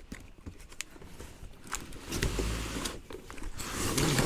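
Cardboard box and inserts scraping and rustling as an electric hedge trimmer is slid out of its packaging: a few light clicks, then louder rubbing about halfway through and again near the end.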